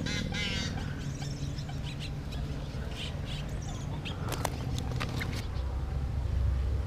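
A hooked largemouth bass splashing at the side of an inflatable boat as it is lifted from the water, followed by a few sharp clicks of handling. A bird trills briefly at the start over a steady low rumble.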